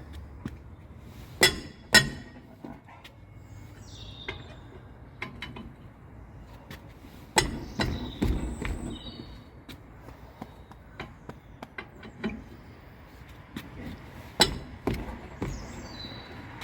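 Steel wheel brace worked round a van's wheel nuts in a final tightening pass: scattered metallic clinks and clicks, with four louder sharp knocks as the brace is fitted and pulled on each nut.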